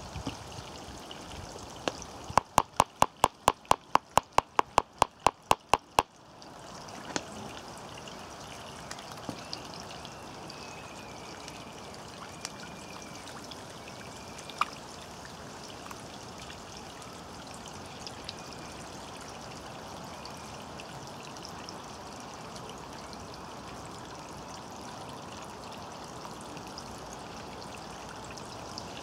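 Steady trickling, running water of a garden pond. About two seconds in comes a quick run of around fifteen sharp clicks, roughly four a second, lasting about four seconds. A few single soft clicks follow later.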